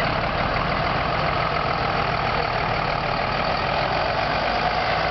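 Fire truck engines idling with a steady mechanical drone.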